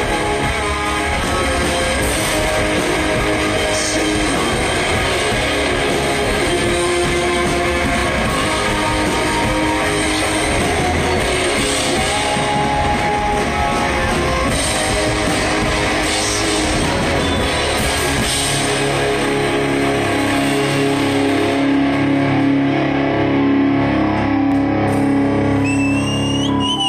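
Rock band playing live: electric guitars over a drum kit. About two-thirds through the drumming stops and held guitar chords ring on.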